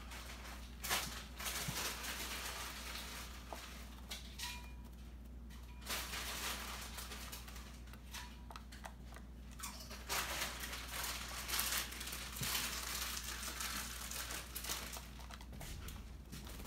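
Pet canary bathing in a shallow water dish, splashing and fluttering its wings in several rough spells of splashing and rustling.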